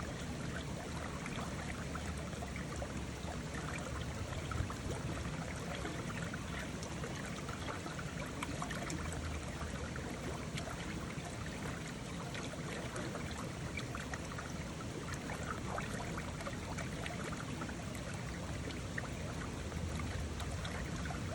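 A mountain river running over rocks: steady rushing and splashing water with small bright splashes throughout.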